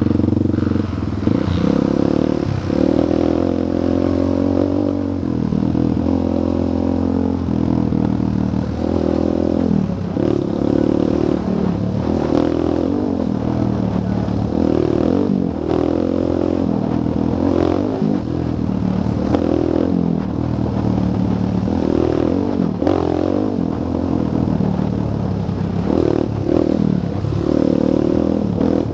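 ATV engine heard close up from the rider's seat, revving up and easing off again and again as the throttle is worked, with the machine rattling over the bumps of a dirt trail.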